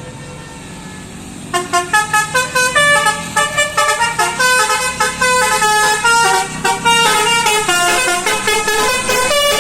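Bus telolet horn (Basuri multi-tone air horn) playing a fast tune of short notes stepping up and down, starting about a second and a half in, over a low engine drone.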